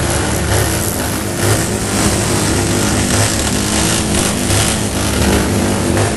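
Motorcycle engines running steadily and loudly under a dense wash of noise.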